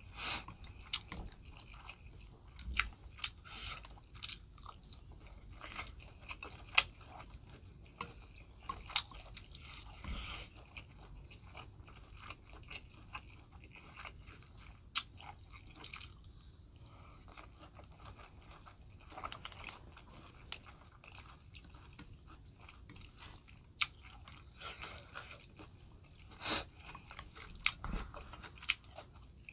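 Close-miked mouth sounds of a person eating spicy noodle soup: steady chewing with scattered wet clicks and smacks, and a short slurp of noodles right at the start.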